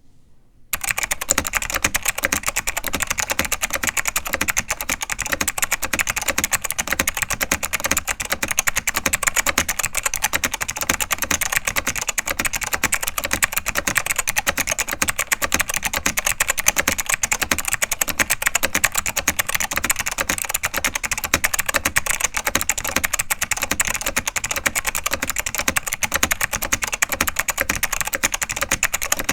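Fast, continuous typing on a vintage ProXellent mechanical keyboard with clicky Alps SKCM White switches: a dense stream of sharp key clicks, starting just under a second in.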